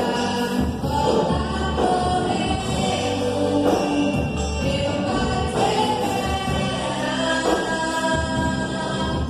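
Gospel band performing a song: several voices singing together over instruments with a steady bass line.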